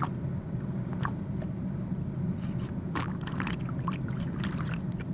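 Drinking sound effect: a few faint gulping and swallowing clicks, the clearest about three seconds in, over a steady low hum.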